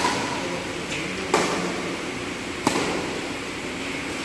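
Badminton rackets striking a shuttlecock in a rally: three sharp hits, evenly spaced a little over a second apart, over a steady background hiss.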